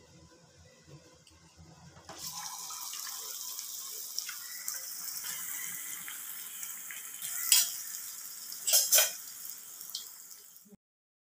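Chicken kebab pieces deep-frying in hot oil in a kadai. A steady sizzle starts suddenly about two seconds in, with louder surges near the middle and end as more pieces go in, then cuts off abruptly.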